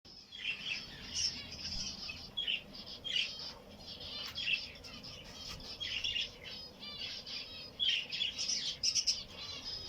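Many small cage birds chirping at once, with short overlapping calls coming several times a second and some louder bursts of calling near the end.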